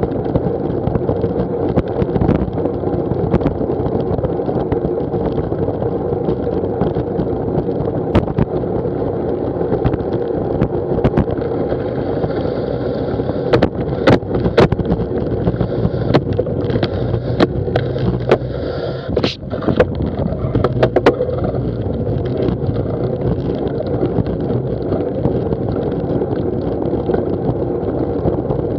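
Wind rushing over a Garmin VIRB action camera's microphone on a bicycle moving at about 15 mph, with tyre noise on a tarmac path. A run of sharp clicks and rattles comes through the middle.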